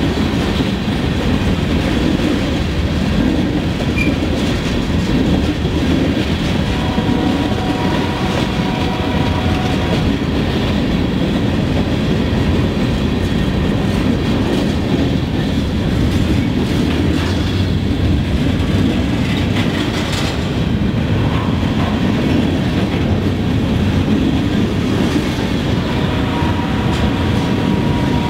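Freight train cars rolling past at close range: covered hoppers and then loaded gondolas, a steady heavy rumble with wheels clattering over the rail joints. A faint wheel squeal rises twice, about a third of the way in and again near the end.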